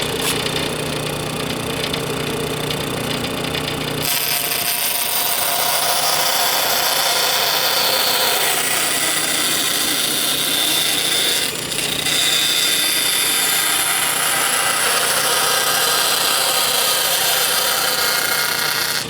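Power saw running, its blade cutting a curve through an acrylic sheet: a steady motor hum, joined about four seconds in by the dense hiss of the cut, which breaks off briefly about halfway through and then carries on.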